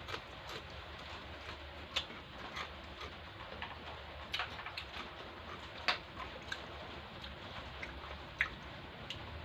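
Close-miked eating sounds: chewing chicken, with scattered sharp mouth clicks and smacks, over a steady low hum.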